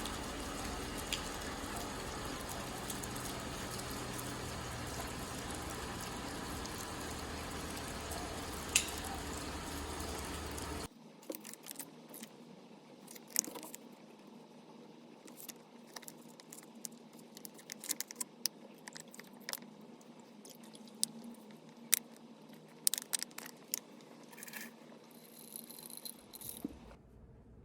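Steady rain noise for about the first eleven seconds, cutting off suddenly; then irregular sharp clicks of keys typed on a keyboard over a much quieter background.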